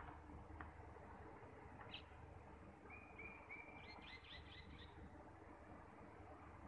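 Faint bird calls: a few short level notes, then a quick run of about five chirps, over a low steady background noise.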